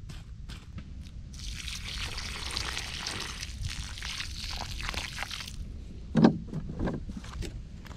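A thin stream of water pours into a small hole dug in the soil and splashes into the muddy puddle at its bottom. The pour lasts about four seconds, and a dull thump follows soon after it stops.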